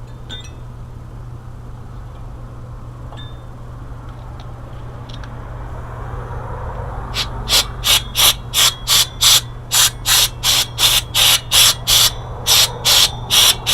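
Paper towel dampened with alcohol rubbed briskly back and forth over a metal surface to scrub off old thermal paste, about three scratchy strokes a second, starting about halfway in. A steady low hum runs underneath.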